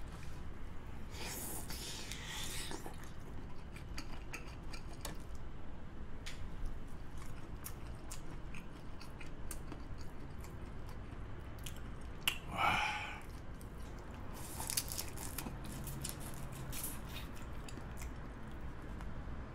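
Close-up chewing and biting of a large sauce-coated black tiger prawn, with many small wet mouth clicks. A brief, louder mouth sound stands out about twelve seconds in.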